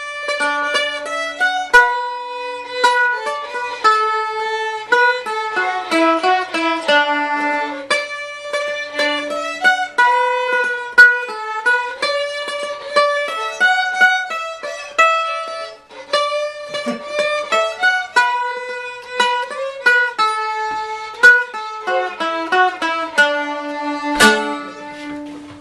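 Acoustic string music: a quick melody of plucked notes with a few longer held low notes, dying away near the end.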